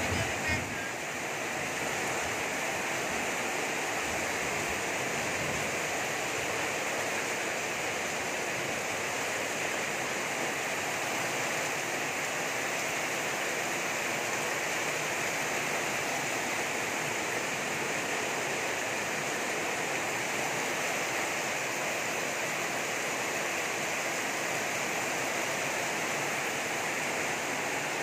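Torrential rain pouring steadily onto a flooded street and roofs, a constant even rush of water.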